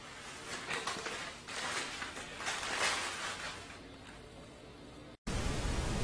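Faint rustling and handling noises as a toddler's hands move items on a table, busiest in the first three seconds. About five seconds in the sound cuts out and a louder, low room rumble sets in.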